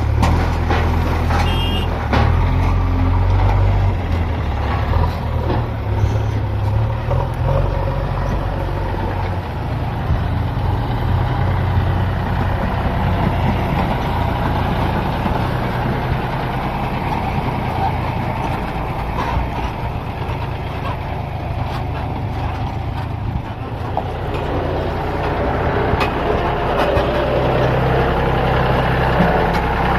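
JCB backhoe loader's diesel engine running steadily as the machine works, with a few short knocks.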